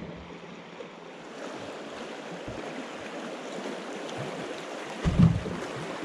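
River water rushing and lapping around a drift boat as it floats, a steady rushing that swells slightly after about a second. A loud low thump comes about five seconds in.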